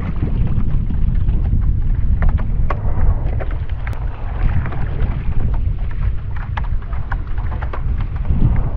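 Heavy low rumble of wind buffeting a bow-mounted action camera's microphone, with scattered small splashes and drips of water as an inflatable rowing board is sculled across the sea.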